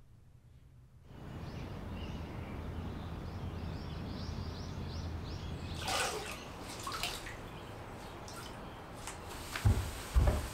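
Water splashing and dripping as a wet floor cloth is wrung out over a bucket, after a bird's run of quick short chirps. Near the end, low thumps and rubbing as the cloth is pushed along a wooden floor on hands and knees.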